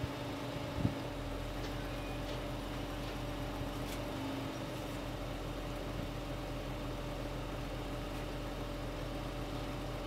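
Jeep Grand Cherokee engine idling, a steady low hum, with a brief knock about a second in.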